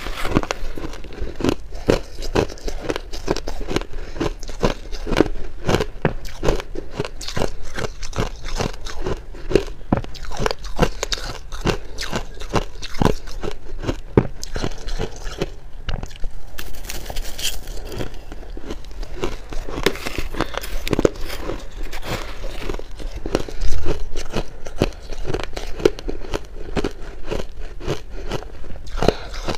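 Shaved ice crunching between the teeth as it is bitten and chewed: a steady run of crisp crunches, with a brief lull about halfway through.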